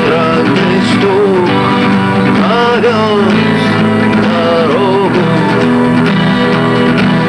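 Acoustic song: a voice singing over strummed or plucked acoustic guitar.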